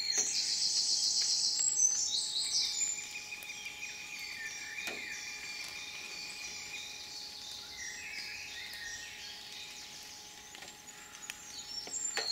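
Woodland songbirds singing: a fast, high trilling phrase in the first two seconds and again at the very end, with a thinner high whistling song through the middle. An occasional faint tap sounds over it.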